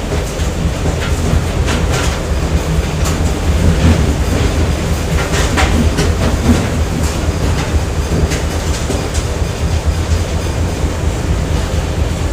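Factory machinery ambience: a steady heavy low rumble with irregular metallic clanks and knocks scattered through it, thickest in the first two thirds.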